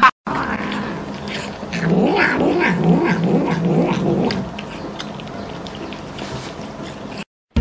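Tabby cat growling and yowling at its food: a string of low, wavering calls that rise and fall, from about two seconds in until about four and a half seconds in.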